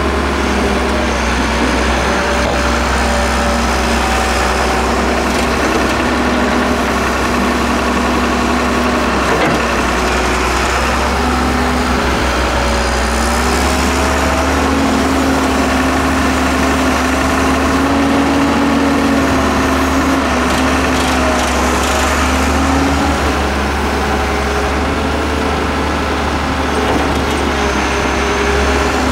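Hyundai Robex 1300W wheeled excavator's diesel engine running steadily under hydraulic load while it digs sand, its note rising about halfway through and settling back down a few seconds before the end.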